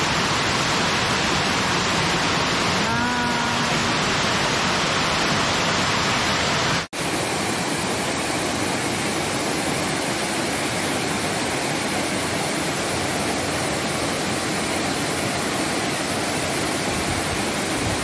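Steady rush of a waterfall pouring down a rocky cascade into a pool. The sound drops out for an instant about seven seconds in, then the rush carries on at much the same level.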